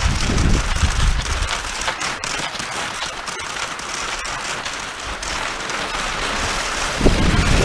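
Skis sliding over snow with a steady grainy hiss, and wind buffeting the microphone as a low rumble at the start and again near the end.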